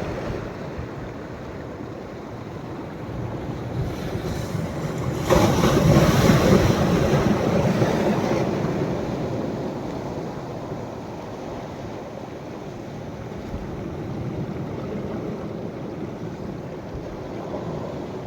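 Sea waves breaking on the shore at a rising tide: a steady wash of surf, with one wave crashing about five seconds in and washing away over the next few seconds, and a smaller wave near the end.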